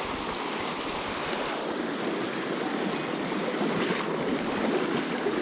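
Steady rushing of a mountain stream's flowing water, growing slightly louder toward the end.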